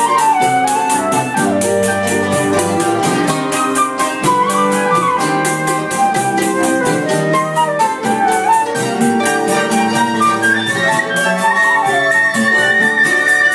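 Choro ensemble playing: a flute carries the melody, with slides and turns, over acoustic guitar accompaniment and a steady, quick percussive pulse.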